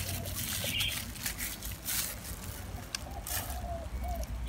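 Soft rustling and scattered short clicks of thin plastic gloves working sticky bulbs out of a halved jackfruit, over a low steady rumble.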